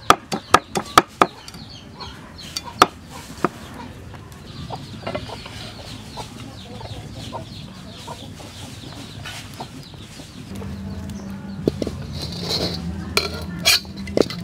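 Cleaver chopping chilies on a wooden chopping block: a quick run of knocks for about a second, then a few scattered chops. Later, quieter scraping and clinks, with a low steady hum setting in about ten seconds in.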